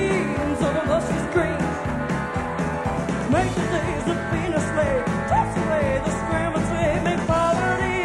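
Live country-rock band playing an up-tempo number, with drums, bass and electric guitar driving a steady beat and a lead line of sliding, bending notes over it.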